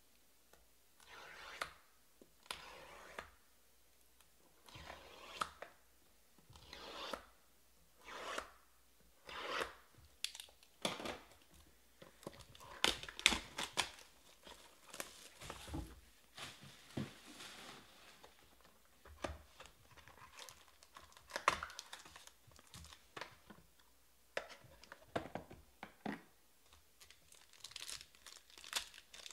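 Plastic shrink-wrap being torn off a sealed trading-card box in a series of short rips. Crinkling plastic follows as the box and a foil card pack from inside it are handled.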